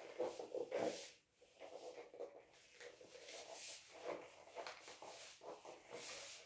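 Handheld eraser wiping marker off a whiteboard in a run of soft, irregular rubbing strokes.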